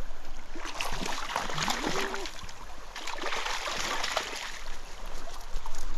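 Trout stream water running, with irregular splashing.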